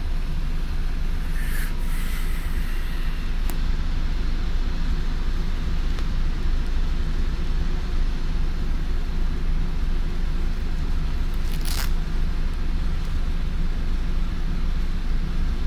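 Karosa B741 articulated city bus heard from inside while under way: a steady low hum of its diesel engine and drivetrain with road noise. Two short hisses break in, one near two seconds and one near twelve seconds.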